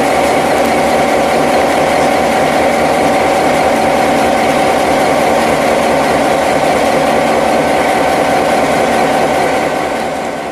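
The EMD 567 two-stroke diesel engine of a NOHAB-GM Di3 locomotive running steadily, with a constant mechanical whine over the engine's beat. It fades out near the end.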